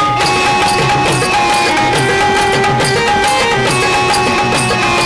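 Live folk song accompaniment: a quick, steady drum beat under long held instrument notes, with no singing.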